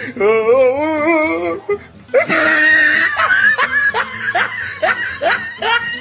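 Comic laughter sound effect: a wobbling, held voice-like tone for about a second and a half, then a loud outburst of laughter in quick repeated 'ha's.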